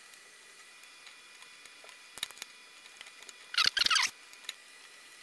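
Small hardware being fitted by hand: a few light clicks about two seconds in, then a short burst of high squeaking and scraping about three and a half seconds in as a thin metal pin is pushed into a plastic handle piece of the glass draft-shield door.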